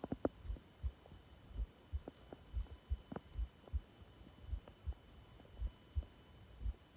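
Subtle human stomach growling: a few brief, faint squeaky gurgles, the clearest near the start and about three seconds in, over steady low thumps that come in pairs about once a second.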